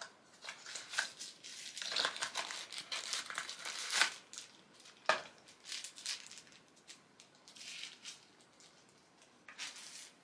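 Tissue paper and light cardboard packaging crinkling and rustling in irregular bursts as a product box is unwrapped by hand, with one sharp click about five seconds in.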